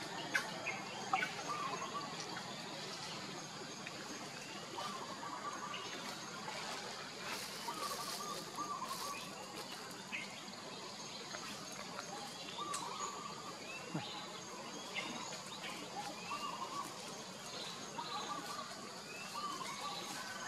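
Tropical forest ambience: birds giving short warbling calls and quick chirps, repeated every second or two, over a steady high insect hum.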